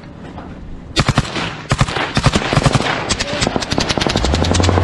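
Automatic weapon fire in rapid bursts, starting about a second in and running in quick strings of shots. Near the end a boat's outboard motor starts up and runs with a steady low drone.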